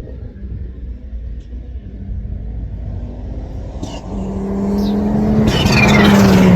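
Racing car engine at full throttle, growing steadily louder over the last couple of seconds as it comes past. Its engine note drops slightly at the loudest point.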